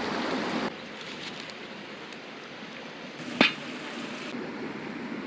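River water rushing steadily, louder for the first moment and then dropping abruptly to a softer rush; about two-thirds of the way through, a single sharp knock.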